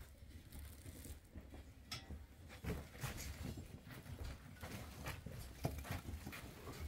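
Faint footsteps, shuffling and scattered soft knocks of people moving about and handling things.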